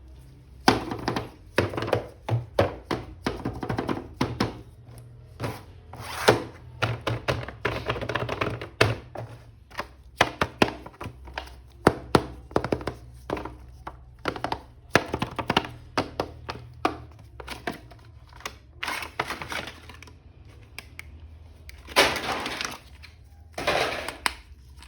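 Hands handling a plastic toy action figure and its packaging: irregular clicks, knocks and snaps, often several a second, with short pauses between groups.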